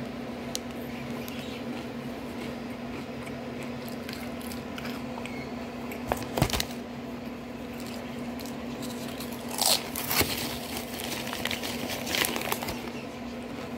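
Foil chip bag crinkling and barbecue potato chips rustling and crunching as a hand digs through them, with a few sharper crackles about halfway through and near the end.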